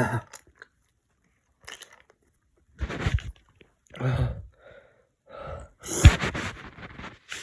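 A sick man coughing and gagging in a series of harsh throat bursts after swallowing a cough-syrup drink, the loudest about six seconds in.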